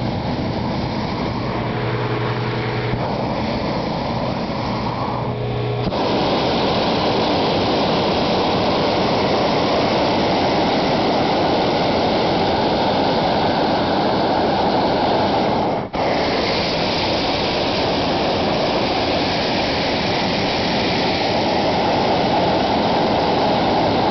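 Cloud hopper hot-air balloon's propane burner firing steadily to heat the envelope for launch. It gets louder about a quarter of the way in and cuts out for an instant about two-thirds through before firing on.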